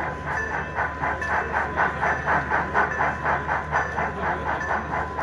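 HO scale model of Norfolk & Western 4-8-0 steam locomotive No. 475, its sound system playing steady steam exhaust chuffs at about four a second as it runs, the chuffs swelling louder in the middle.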